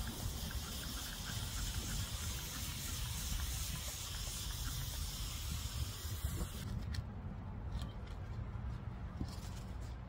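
Wind buffeting the microphone with a low rumble, under a steady high hiss that starts suddenly and cuts off about seven seconds in. A few short rustles follow near the end.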